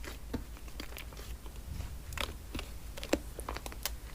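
Slime being played with by hand: scattered small clicks and crackles, irregularly spaced.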